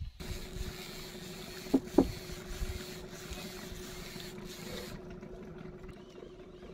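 Steady hum of a small boat's engine over wind and water noise, with two sharp knocks about two seconds in.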